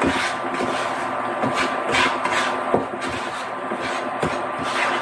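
A spatula scraping and stirring a thickening flour-and-bacon-grease roux across a skillet bottom in quick repeated strokes, about two to three a second, over a steady hum.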